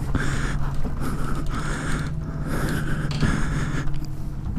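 A person breathing hard from exertion, short heavy breaths coming one after another, over a steady low hum.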